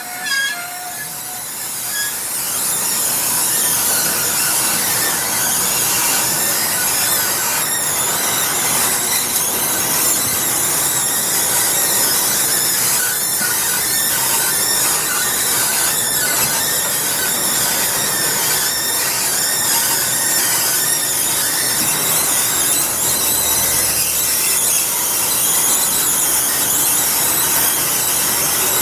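Rigert stair lift running on its very steep 69° track, squealing and squeaking loudly and without a break. The sound swells about two seconds in and then holds steady.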